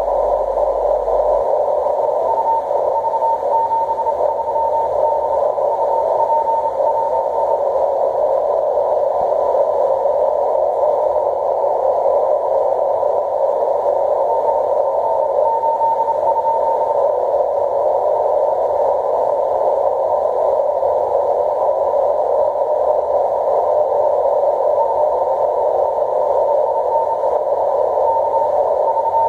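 Kenwood shortwave transceiver receiving CW on the 10-metre band: a steady hiss of band noise through a narrow filter, with a weak Morse code tone from the V73D DXpedition station fading in and out of the noise.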